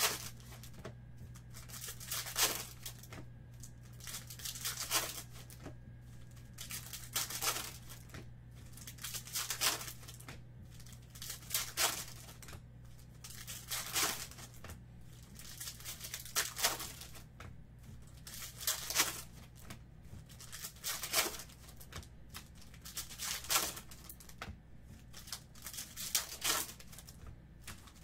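Foil trading-card packs being torn open and crinkled one after another, a sharp crackly rip about every two and a half seconds.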